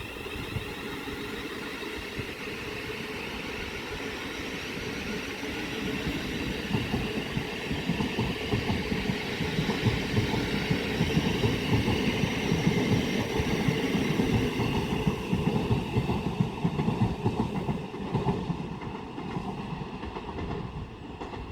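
Electric passenger train running through, its rumble building over several seconds and then fading, with the wheels clattering over rail joints.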